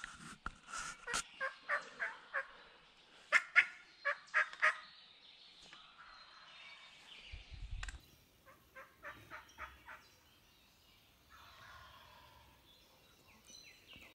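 Wild turkeys calling: runs of short, loud, evenly spaced notes about three a second, the loudest run a few seconds in and a fainter run near ten seconds.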